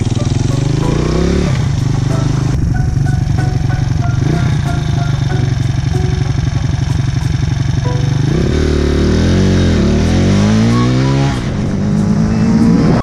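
Zongshen 125cc single-cylinder four-stroke engine of a small motorbike, ridden under acceleration. Its revs climb in the first second and a half and then drop, hold steady for several seconds, then rise and fall twice and climb again near the end.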